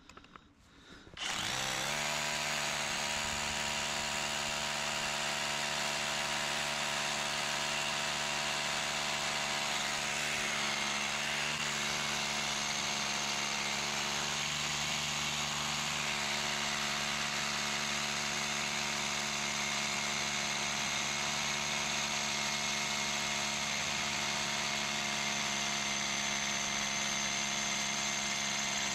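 A battery-powered power tool starts about a second in and runs steadily, working into rock.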